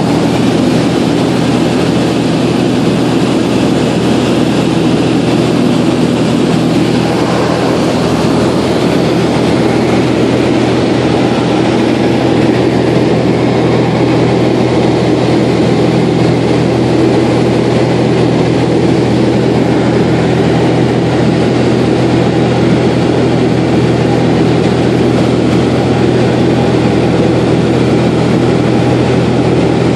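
Light aircraft's engine and propeller droning steadily in cruise, heard from inside the cockpit together with the rush of the airflow.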